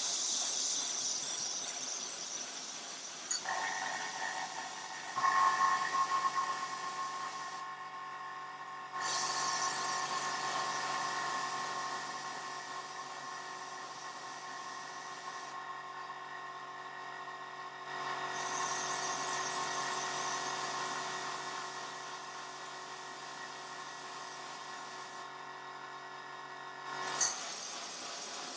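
Airbrush hissing as it sprays paint in four long bursts of about six seconds, with brief pauses between them. An air compressor starts about three seconds in, runs with a steady hum and stops shortly before the end.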